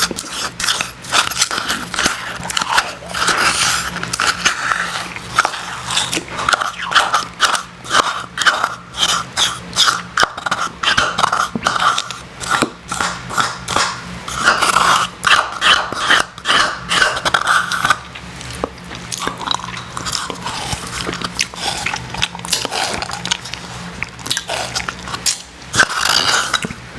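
Someone chewing icy Icee slush close to the microphone, with many quick crunching crackles. The crunches thin out to softer chewing about two-thirds of the way through.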